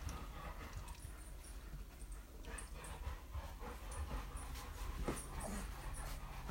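A litter of young puppies whimpering faintly, with a few short squeaks in the second half.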